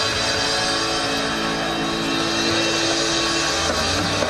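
Idol-pop song playing loud over the stage PA during an instrumental stretch, with electric guitar and long held notes and no singing.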